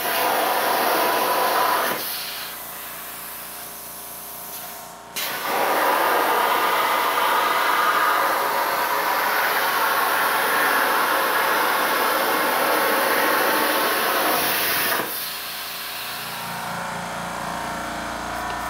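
Hypertherm Powermax 30 XP plasma cutter on a CNC table cutting through powder-coated sheet steel: a loud, steady hiss of the arc for about two seconds, then a few seconds of quieter steady hum, then a second, longer cut of about ten seconds that stops suddenly, leaving a quieter hum.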